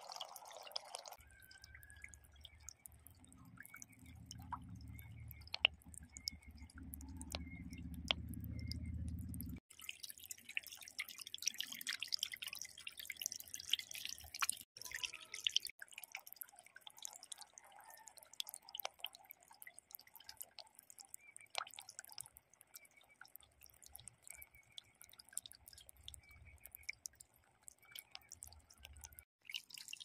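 Water trickling and dripping over a miniature concrete waterfall, many small drips and splashes over a soft steady trickle. A low rumble runs underneath for roughly the first ten seconds and cuts off suddenly.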